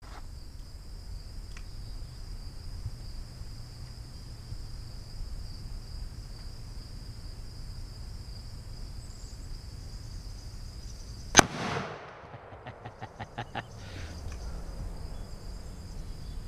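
A single shot from a Smith & Wesson 500 revolver firing .500 S&W Magnum, about eleven seconds in, sharp and very loud with a trailing echo. Before the shot there is a steady high insect buzz.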